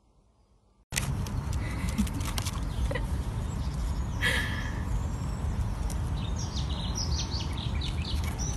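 Birds chirping over a steady, low outdoor rumble. The rumble cuts in abruptly about a second in, after near silence, and the chirps come several times, more often in the second half.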